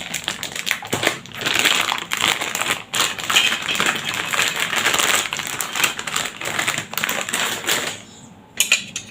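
Packaging around a set of small gardening hand tools being opened: a dense run of crinkling and fast clicks, dying down over the last second or so.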